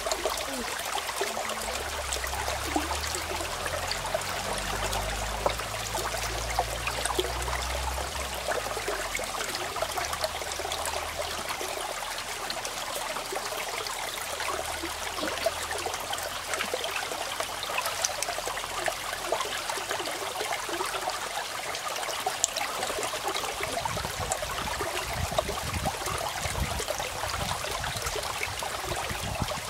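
Small rocky stream running steadily over and between stones, a continuous rush and splash of water, with a low rumble under it in places.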